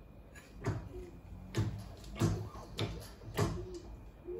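Hydraulic shop press with a bending brake being worked while it bends a mild steel strip into a U: a series of knocks, roughly one every two-thirds of a second, with short squeaks between some of them.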